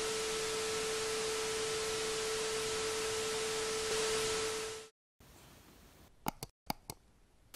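Old-TV static sound effect: a steady hiss with a steady pure tone under it that cuts off about five seconds in. A few short, sharp clicks follow near the end.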